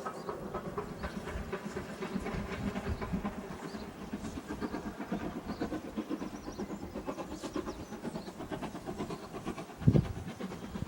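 Steam train hauled by an American 2-8-0 locomotive running past, its wheels clattering rhythmically over the rails, with one loud thump about ten seconds in.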